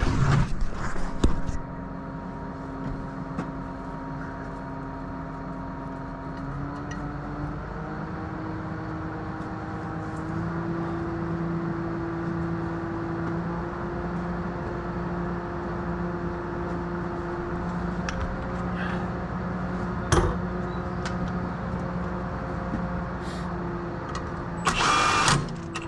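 An engine running steadily, its pitch stepping up twice in the first half, with a single sharp knock past the middle and a burst of rustling and clatter near the end.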